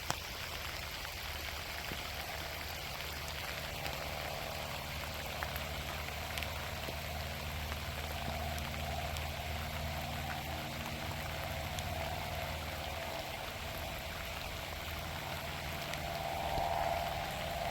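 Light rain falling in a gentle drizzle, a steady even patter, with a low steady hum beneath it and a brief swell near the end.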